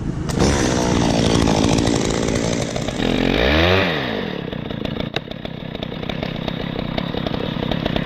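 Top-handle chainsaw running, revved up and back down once about three and a half seconds in, then running steadily.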